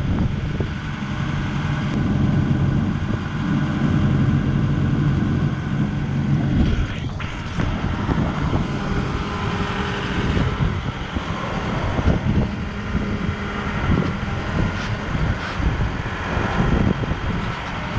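The crane's engine running steadily with a low hum, strongest in the first few seconds, while it lifts a mast.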